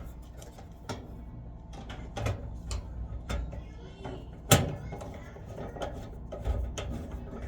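Scattered clicks and taps of a screw being fitted and turned back into a dryer's metal vent fitting, with one sharper knock about halfway through.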